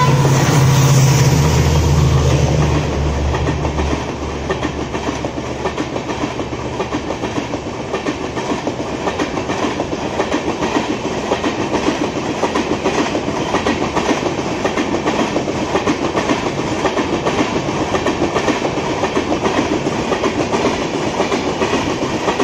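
WDP4D diesel-electric locomotive's two-stroke EMD engine running loud and low as it passes for the first three or four seconds. LHB passenger coaches then roll by at speed with a steady, regular clickety-clack of wheels over rail joints.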